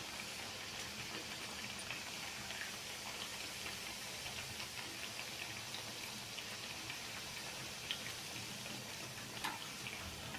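Coconut fritters deep-frying in hot oil on medium flame: a steady sizzle full of small crackles, with a few sharper pops in the second half.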